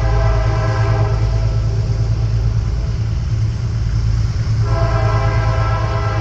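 Diesel freight locomotive sounding its multi-chime air horn for a grade crossing: one blast ends about a second in and another starts near the end. A heavy, steady diesel engine rumble runs underneath.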